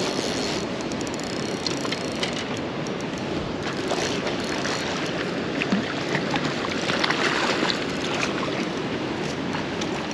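Steady rush of flowing river water, with a few faint small clicks over it.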